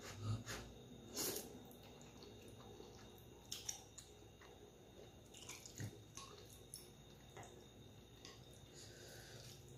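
Faint wet eating sounds: instant noodles in spicy broth being slurped and chewed, with scattered short mouth smacks and clicks.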